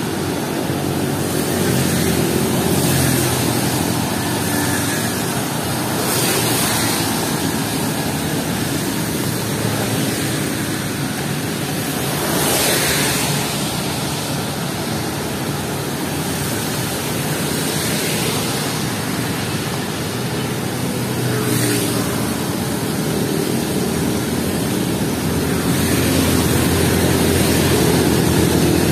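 Steady rain hiss with cars passing on the wet road, their tyres swishing through the water several times, loudest about halfway through.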